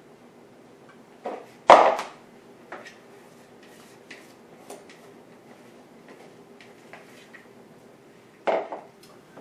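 A utensil knocking and scraping against a mixing bowl and a glass baking dish as a thick casserole mixture is scraped out and spread, in scattered clunks and clinks, the loudest about two seconds in and another near the end.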